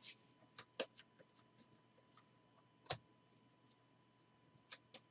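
Faint, scattered clicks and ticks of a stack of trading cards being handled and flipped through, with two sharper clicks about one and three seconds in.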